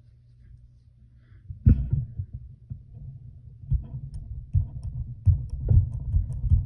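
Irregular low thumps and bumps of hands handling a pair of scissors on a wooden table. The thumps start with a loud one about a second and a half in, and faint small clicks from the scissors join them in the second half.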